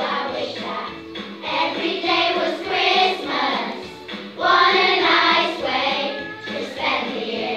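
A children's choir singing together, swelling louder over two phrases in the middle.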